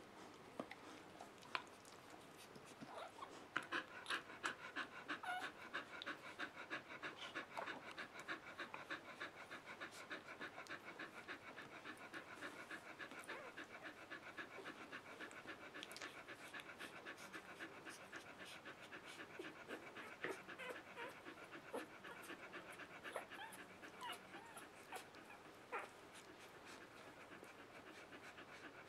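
Australian Shepherd mother dog panting quickly and steadily, starting a few seconds in, while nursing her newborn puppies. A few light clicks come before the panting starts.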